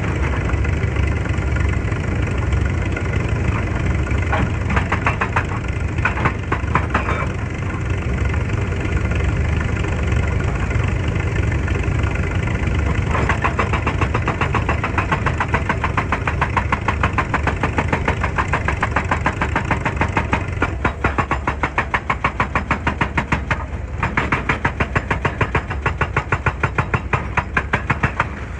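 Excavator's diesel engine running steadily. From about halfway through, a fast, even clatter sounds over it.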